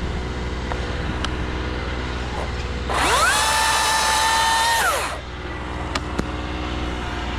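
Chainsaw revved up sharply to full throttle, held for about two seconds, then let back down to idle, over a steady low engine drone.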